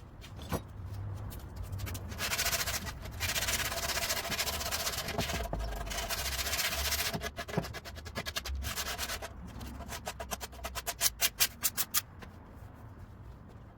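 Woodworking noise. A power tool runs steadily with a hiss for about five seconds, then come rhythmic rubbing strokes, like sanding or sawing wood, that quicken and grow louder near the end.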